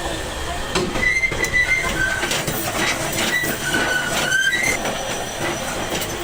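Metal being worked on a damaged truck rim: a steady din with scattered clicks and knocks, and several brief high metallic squeals between about one and five seconds in.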